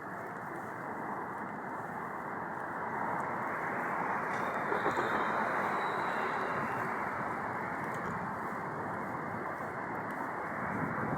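Steady city street noise from passing traffic, with a faint high-pitched whine for a few seconds near the middle.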